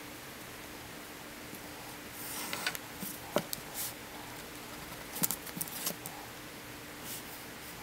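A wooden ruler and pencil handled on paper: a few short rustles and light taps as the ruler is shifted and set down, in two clusters a few seconds apart, over a faint steady hum.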